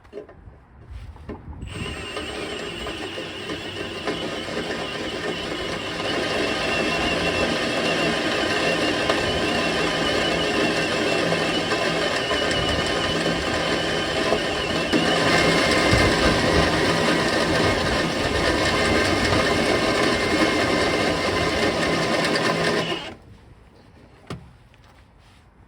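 Electric drill running steadily under load as it bores a pin hole in the steel frame out to 1 inch. It starts about two seconds in, gets louder in two steps, and cuts off suddenly near the end.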